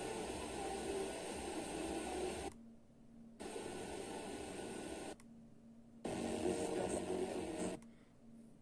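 FM radio receiver audio while tuning up the band in small steps: hissy, weak reception with faint programme sound underneath. Three stretches of it are cut by short silences as the tuner mutes on each frequency change.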